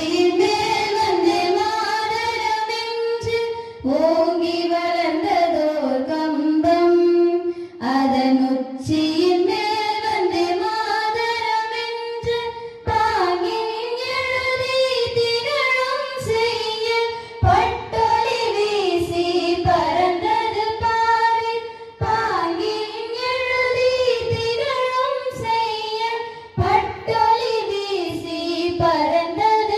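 Young female voices singing a song with held, gliding notes into a microphone.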